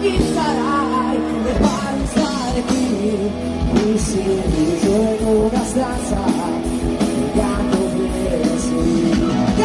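Rock band playing live, with drum hits and guitars under a voice singing in a bending melody.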